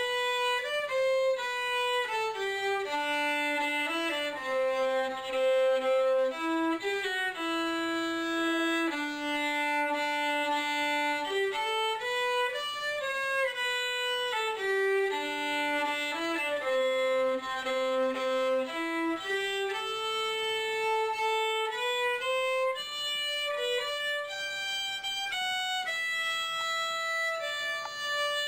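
A solo violin played unaccompanied: one melodic line of bowed notes stepping up and down, the same tune phrase coming round again about every twelve seconds.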